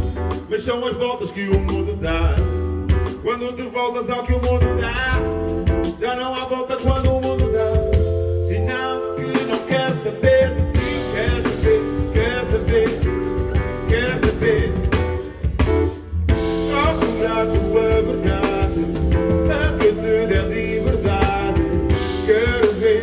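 Live band music: a drum kit keeps a beat under a melodic line with singing.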